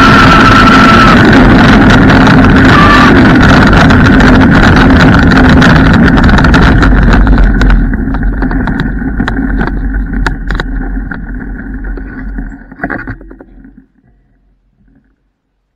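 Electric scooter riding fast, a loud, steady rush of rolling and air noise close to the deck, with a thin whine that fades in the first second. About eight seconds in it rolls onto gravel: quieter, with stones crackling and clicking under the wheels as it slows, and it comes to a stop near the end.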